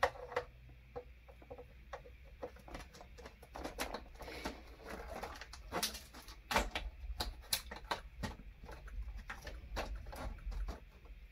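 Handling clicks, taps and light knocks as the front panel of a KORAD KA3305D bench power supply is fitted back onto its metal chassis, irregular and scattered, the loudest a little past halfway.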